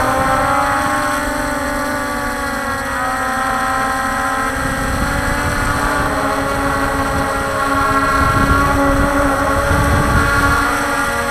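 Walkera Scout X4 quadcopter's motors and propellers humming in flight: several steady tones that drift slightly up and down in pitch, over a rough low rumble of wind on the onboard camera's microphone.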